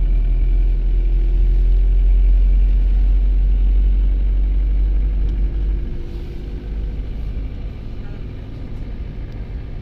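Car running uphill on a winding mountain road: engine and road rumble, with a heavy low rumble that eases about six seconds in.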